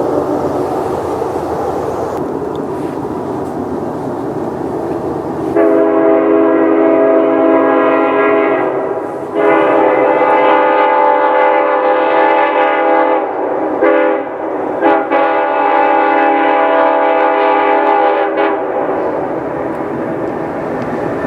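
Nathan Airchime multi-chime locomotive air horn sounding a chord of several notes: two long blasts, a short one and a final long one, the grade-crossing signal. Before the blasts, an earlier horn chord fades out over the low rumble of the train.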